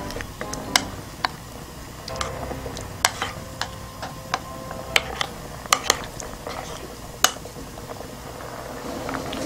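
A wooden spoon stirring chunks of potato and vegetables in stew in a ceramic pot, knocking against the pot in sharp, irregular clicks, one or two a second.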